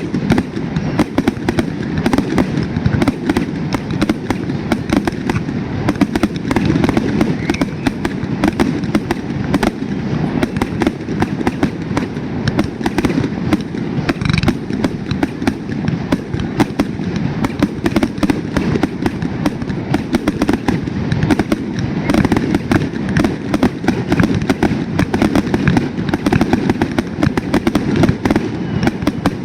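Fireworks going off in a continuous, rapid barrage of cracks and pops over a steady rumble of bangs, with no pause.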